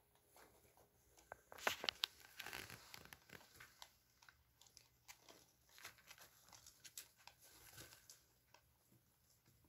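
Faint, irregular crunching and rustling of young rabbits eating dry pellets and moving about in hay and wood-shavings bedding, with a cluster of sharp clicks about two seconds in.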